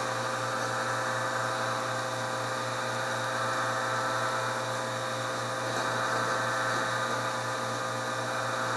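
Steady hum of a small electric motor, holding several constant pitches.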